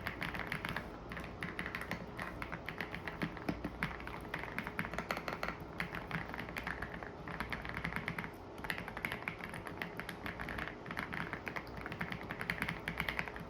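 Fast typing on a YUNZII C98 mechanical keyboard: a dense stream of rapid keystroke clicks, broken by a few brief pauses.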